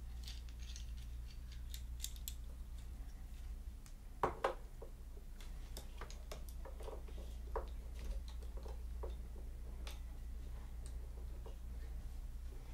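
Scattered light clicks and taps, with a louder knock about four seconds in, over a steady low hum.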